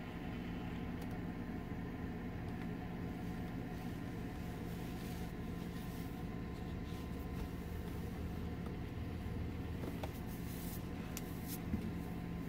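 Steady hum of a heater's blower fan. Near the end come faint rustles and a few soft clicks as knitted slippers are pulled on.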